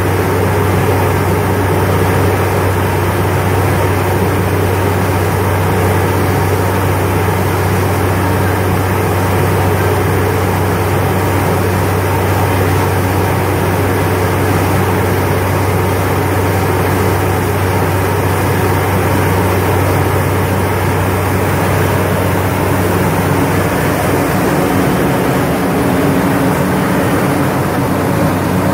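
Truck-mounted water-well drilling rig running as it drills a borehole: a loud, steady heavy engine drone with an even rushing noise over it.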